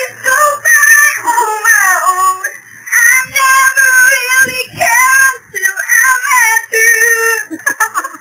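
A woman singing in a very high, thin voice, in short phrases of held and sliding notes with brief breaks between them.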